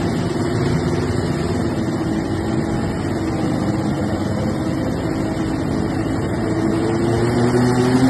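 A diesel garden tractor engine running hard under load as it pulls a weight-transfer sled. The note is steady, sags slightly in pitch midway, then climbs and gets a little louder near the end.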